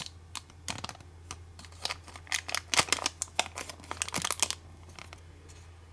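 Plastic packaging crinkling and crackling as it is handled, a quick run of crackles that stops about four and a half seconds in, over a low steady hum.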